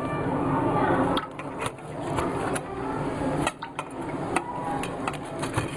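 Knife cutting rolled chapatis on a steel plate: soft scraping and rustling, with a few sharp clicks as the blade knocks the metal at an uneven pace.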